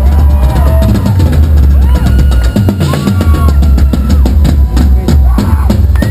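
Live rock drum solo on a full drum kit through a concert PA, heard from the audience. The bass drum plays fast and dense under snare and cymbal hits, with no let-up.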